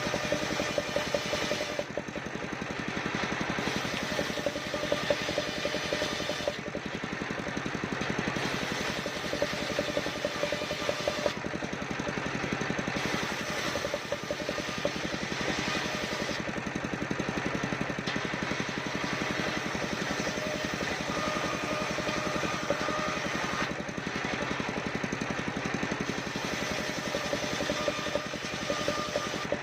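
Engine-driven portable circular saw mill running steadily, its engine pulsing evenly, while the sound's upper hiss and a mid-pitched tone come and go every few seconds as the blade works through waru wood.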